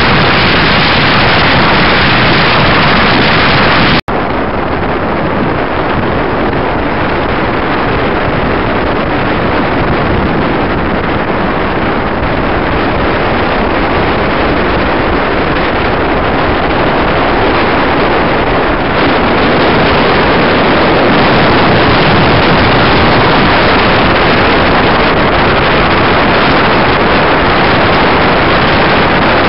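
Heavy wind rushing over the microphone of a camera carried on a moving motorcycle. It is a loud, steady roar of noise, broken by a split-second dropout about four seconds in, after which it goes on slightly duller.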